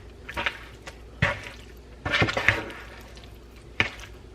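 Tongs tossing raw chicken pieces coated in seasoning: a few short wet, squishing stirs, the longest about two seconds in, and a sharp click of the tongs near the end.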